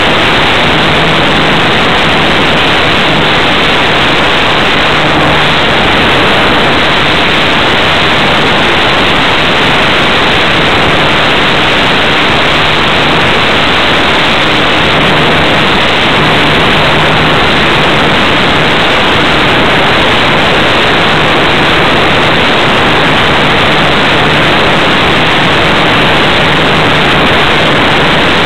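Loud, steady rush of airflow over the onboard camera microphone of a radio-controlled model airplane in flight, with a faint low hum that comes and goes.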